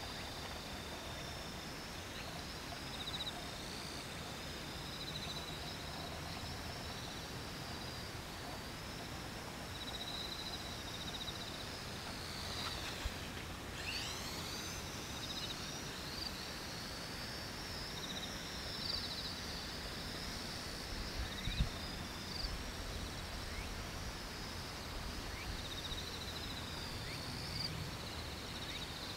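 X400 quadcopter's electric motors and propellers whining high and wavering as it flies at a distance. The whine sweeps down and back up as it passes closest, about halfway through.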